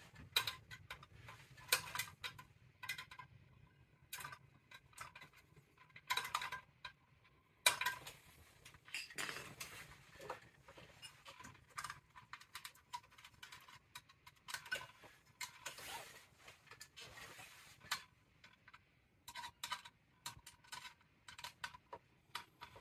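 Irregular small metallic clicks, taps and scrapes of a screwdriver and wire connectors against the boiler aquastat's sheet-metal control box as the wires are fastened back onto its terminals.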